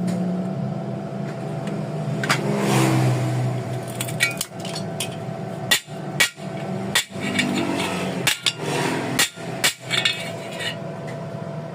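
Hammer blows striking a freshly flux-core-welded steel joint to test the weld's strength: a series of sharp, irregular knocks over a steady low hum.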